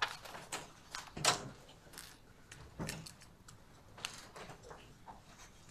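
Several people filing out of a dock through a door: scattered footsteps, shuffles and knocks, with two louder thumps about one and three seconds in.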